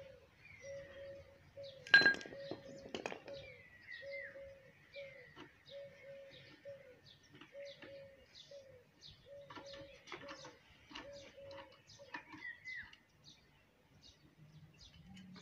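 A bird calls over and over in short repeated notes with quick falling chirps. Over it come a few sharp metallic clinks of a wrench and tools on the engine block, the loudest and ringing about two seconds in.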